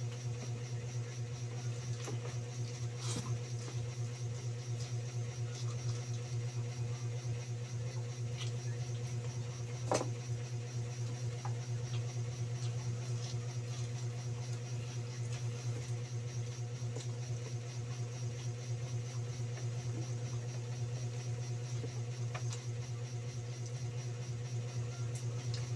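A steady low motor hum from a fan or appliance runs throughout, with faint eating noises from a man tearing roast chicken apart by hand and chewing, and a sharper tap about ten seconds in.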